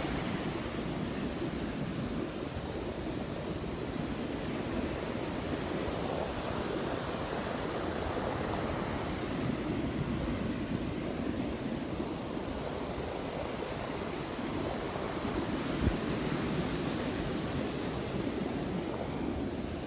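Rough Gulf surf breaking and washing on the beach, a steady rushing noise.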